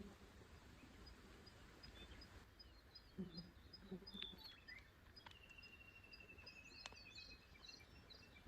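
Quiet forest ambience with faint birdsong: repeated high chirps, and an even trill lasting about two seconds in the middle. A few soft, low calls come about three to four seconds in.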